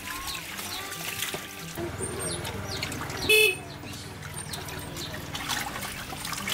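Water sloshing and splashing as plucked duck carcasses are rubbed and washed by hand in a tub of water. About three seconds in comes one short, loud, pitched blast, and a low steady hum runs through the second half.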